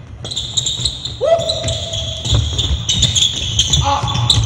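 Basketball players' sneakers squeaking repeatedly on a hardwood gym floor, with the ball bouncing and feet pounding as a baseline out-of-bounds play is run.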